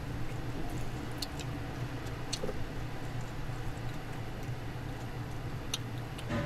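Chopsticks picking at pan-fried jeon on a foil-lined platter, giving a few scattered light clicks and ticks. A steady low room hum runs underneath.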